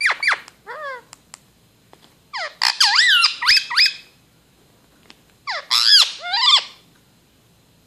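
Indian ringneck parakeet chattering to its reflection in a toy mirror: quick squeaky chirps that sweep up and down in pitch. There are three bouts: a short one at the start, a longer busy run around the middle, and another shortly after.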